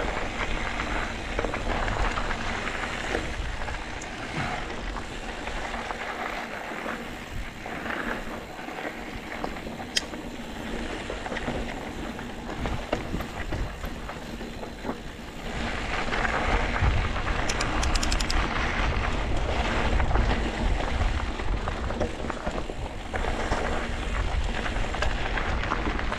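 Wind buffeting the microphone over a continuous rushing, rumbling noise, like tyres rolling over a rough dirt trail, with a sharp click about ten seconds in and louder passages after about sixteen seconds.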